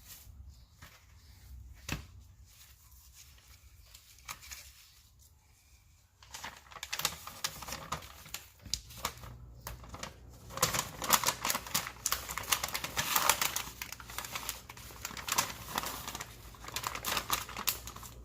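Freezer paper crinkling and rustling as chicken thighs are wrapped: a few light knocks at first, then steady crackling from about six seconds in.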